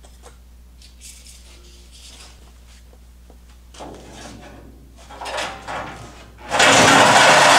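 Light clicks and scrapes of tools being handled, then about six and a half seconds in a corded power saw starts, loud and steady, cutting across the sheet-steel floor of a Ford F100 pickup bed.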